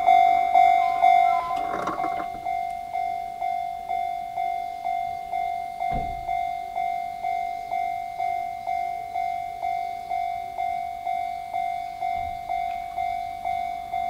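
Japanese railway level-crossing alarm bell with the Chichibu Railway's own bell tone, ringing steadily about twice a second and turning quieter about one and a half seconds in. A single low thump comes near the middle.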